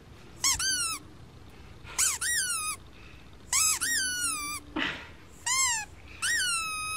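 A rubber squeaky dog toy squeaked five times, each squeak a sharp high squeal that rises and then falls in pitch. The last squeak is drawn out longer.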